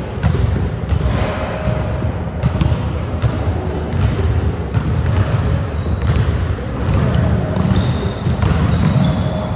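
Basketballs bouncing on a hardwood gym floor: repeated dribbles and thuds. Short high sneaker squeaks join in the second half as players run the court.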